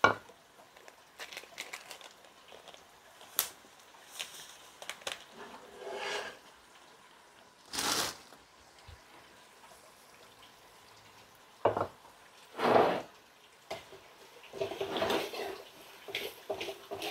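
Sugar being scorched dark with garlic and spices in a wok, the colour base for a pa-lo stew, heard as faint cooking with scattered knocks and scrapes. A metal spatula starts stirring in the wok near the end.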